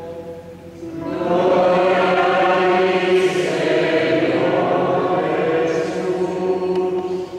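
A congregation singing a short sung response together, a held, slow melody from many voices. It comes in about a second in and dies away near the end.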